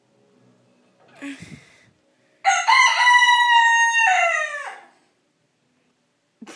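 A Silkie rooster crowing once: a single loud crow of about two and a half seconds that holds its pitch and falls away at the end. A short, softer sound comes about a second before it.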